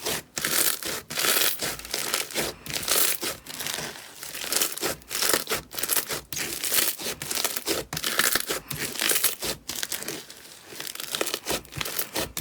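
Slime being squeezed and worked by hand, giving a continuous run of crackly, crinkly pops in quick, uneven bursts.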